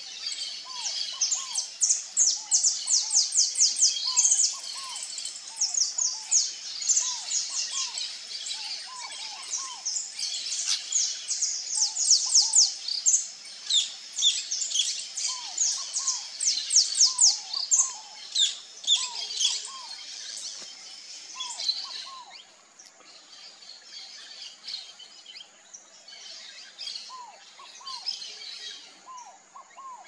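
Saffron finch singing: rapid runs of high, sharp chirps, loud for the first twenty-odd seconds, then fainter and more scattered. A lower, short, repeated call from another bird sounds underneath throughout.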